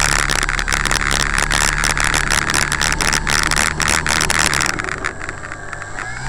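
Electric motor and propeller of an E-Flite Pitts RC model plane, heard through the onboard camera, running loud and steady at high power, with crackles and wind buffeting on the microphone. The motor's steady hum drops away and the sound gets quieter about four and a half seconds in.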